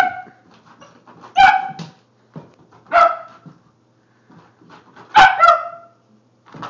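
Italian Greyhound barking while chasing a laser pointer dot: four high-pitched play barks, spaced about one and a half to two seconds apart, the last one longer.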